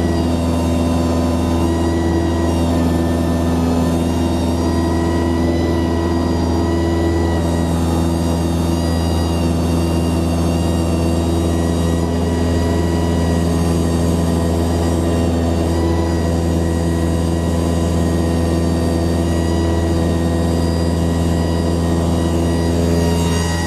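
Cessna 172 Skyhawk's piston engine and propeller droning steadily in flight, heard inside the cabin. The pitch and level hold even throughout.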